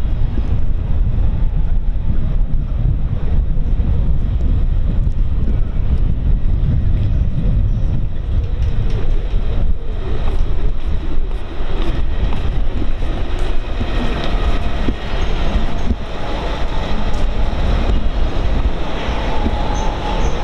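Wind rumbling on the camera microphone over city street noise, with faint higher steady tones in the second half.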